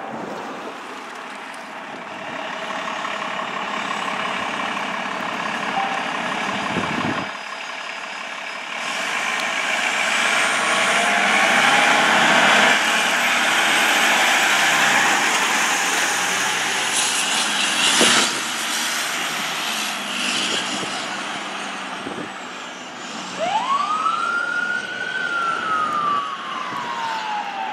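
Seagrave fire engine's diesel engine running as it pulls out and drives off, with a sharp knock about two-thirds through. Near the end its siren rises quickly in pitch and then falls slowly in a long wail.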